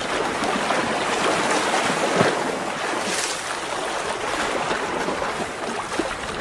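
A child's hands splashing and sloshing through a bathtub of purple slime-bath water, a continuous churning with a sharper splash about two seconds in.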